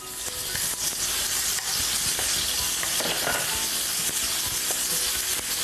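Sliced lamb sizzling in oil heated above 150 °C in a wok, stirred with a wooden spatula. The sizzle builds over the first second, then holds steady: the sign that the oil is hot enough for flash stir-frying.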